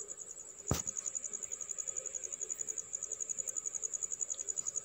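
Crickets chirping: a steady, fast, high-pitched pulsing trill. A single sharp click comes about three quarters of a second in.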